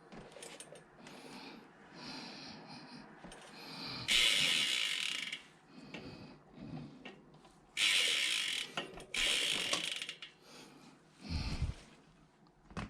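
Rear hub freehub of a HED Emporia GA Performance wheel ticking rapidly as the wheel freewheels, its four pawls clicking over the ratchet ring. It comes in three spells, about four, eight and nine seconds in.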